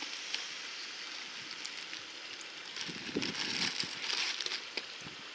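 Steady hiss of flowing river water, with a louder stretch of rustling and light knocks starting about three seconds in and lasting over a second.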